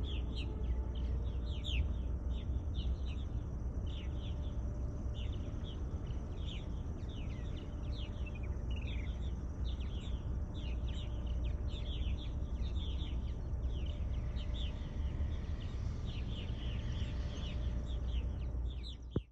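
A crowd of birds chirping busily, many short calls sweeping downward, several a second, over a steady low rumble. The sound cuts off suddenly at the end.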